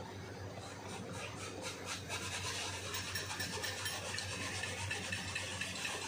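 Rapid back-and-forth scraping of a hand tool against the rubber inner liner of a tubeless tyre, buffing the area around the puncture to prepare it for a mushroom plug patch. The strokes start about half a second in and come thicker after about two seconds.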